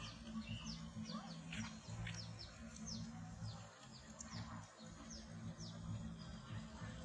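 Small birds chirping: short, quick, downward-sliding chirps a few times a second, over a low steady drone.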